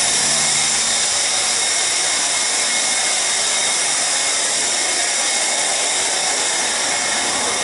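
Dairy milking-parlour machinery running: a loud, steady mechanical hiss and whine with no break.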